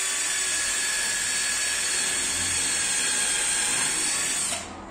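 Cordless drill running at a steady speed, its bit pressed into the edge of a laminated cabinet panel, then stopping suddenly near the end.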